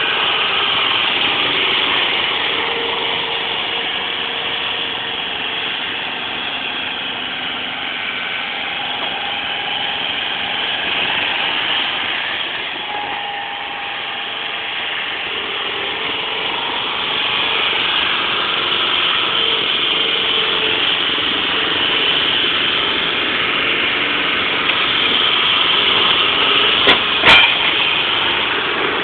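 Small rough-terrain forklift's engine running as it drives about, fading as it moves off and growing louder again as it comes back close. Two sharp clicks near the end.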